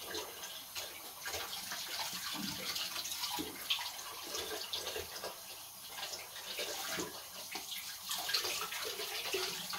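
Small kitchen knife cutting around the stem of a green bell pepper and hollowing it out: irregular crisp cuts, cracks and scrapes over a steady hiss.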